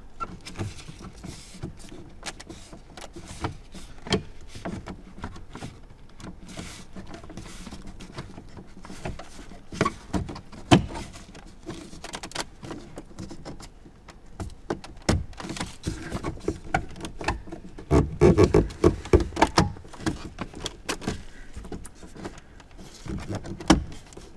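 Hard plastic steering column cowl trim being handled and lined up against the column: scattered clicks, taps and light rattling, one sharp click a little before halfway, and a dense run of knocks about three quarters of the way through.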